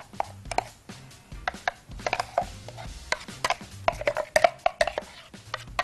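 A utensil scraping and tapping against a plastic food-chopper jar as thick cheese spread is scooped out onto a plate: a run of irregular clicks and knocks.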